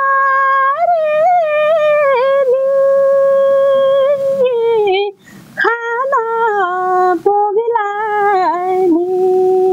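A woman singing a Nepali folk song unaccompanied. She holds long notes and ornaments them with quick turns, then breaks briefly for breath about five seconds in.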